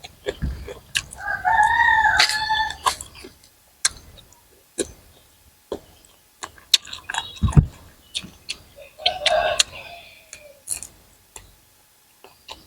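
A rooster crowing twice, about a second in and again about nine seconds in, each call a single rising-and-falling pitched cry. Scattered sharp clicks and taps sound between the crows.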